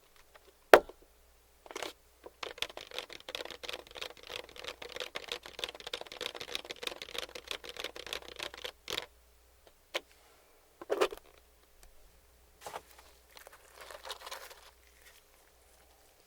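Close-miked chewing and crunching of crispy fried chicken. A sharp click comes about a second in, then several seconds of dense crackly crunching. A few separate clicks and a softer stretch of chewing follow near the end.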